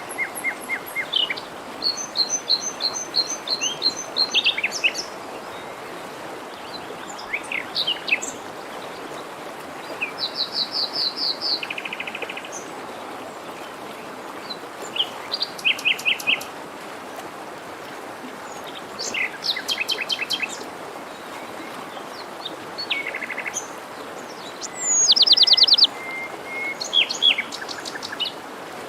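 Several songbirds singing and calling, short chirps and rapid trills of repeated notes, the loudest a trill near the end, over the steady rushing noise of a forest stream.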